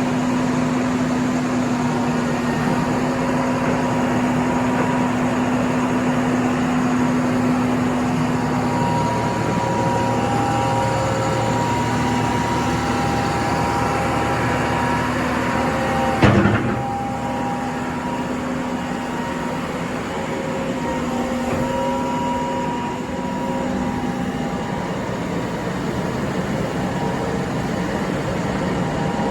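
Gradall XL4100 wheel excavator's Mercedes-Benz diesel engine running steadily, with a few whining tones that come and go. A single sharp clunk sounds a little past halfway through.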